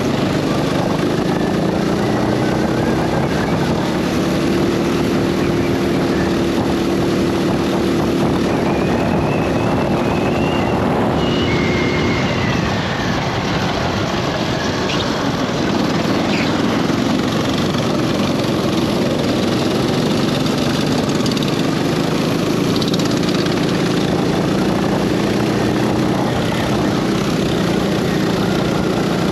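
Go-kart engine running hard, heard from onboard the kart. It eases off briefly about twelve seconds in, then builds again.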